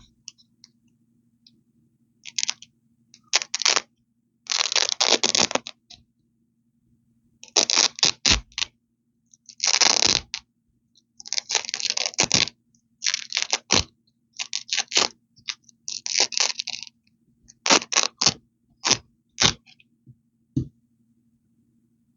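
Hook-and-loop (Velcro) strips ripped apart close to the microphone: about a dozen crackly rips, some quick and some drawn out for about a second, with short pauses between.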